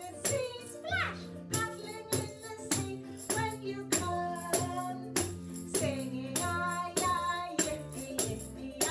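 Hand-held tambourine struck on the beat, about two hits a second, while a woman sings a children's song over an accompaniment with steady bass notes.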